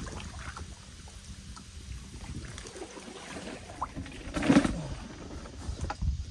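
Scattered small knocks and rustles of things being handled on inflatable paddleboards, with light water sounds around the boards. There is a louder bump about four and a half seconds in.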